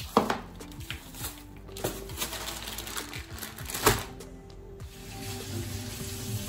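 A thin plastic bag of leafy greens crinkling and knocking as it is handled on a wooden cutting board, with its loudest crackle about four seconds in. Background music plays throughout, and a steady hiss sets in about five seconds in.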